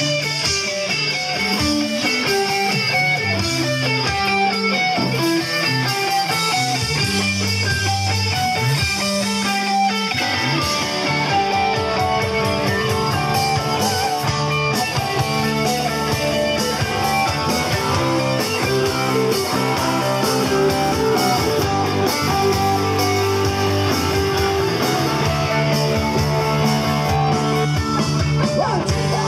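Rock band playing: electric guitar, bass guitar and drum kit, without vocals. The part changes about ten seconds in.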